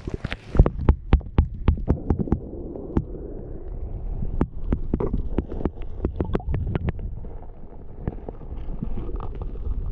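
Muffled underwater sound picked up by a camera held below the surface of a stream: a steady low rumble with many sharp clicks and taps, thickest in the first couple of seconds and again around the middle.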